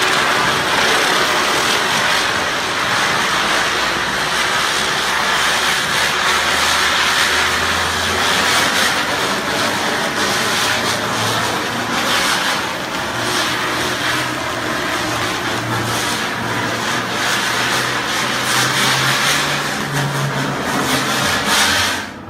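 Diwali ground firework burning with a loud, steady hiss and crackle, a low whir under it slowly rising in pitch, then cutting off abruptly near the end as it burns out.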